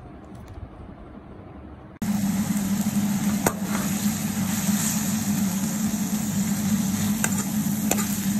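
Stir-frying in a pan: greens, chilli and fish pieces sizzling loudly over a steady low hum, with a metal spatula stirring and clicking sharply against the pan a few times. It starts abruptly about two seconds in, after a quiet stretch.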